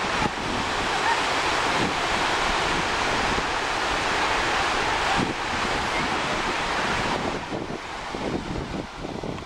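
Steady rushing of sea surf mixed with wind, and wind gusting on the microphone as a low rumble. The rush thins and drops somewhat about seven seconds in.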